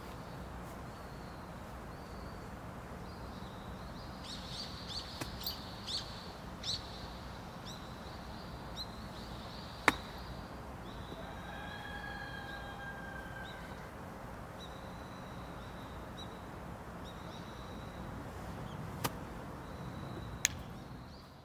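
Outdoor ambience with a steady background hiss and short bird calls, mostly a few seconds in. Three sharp clicks stand out, the loudest about halfway through.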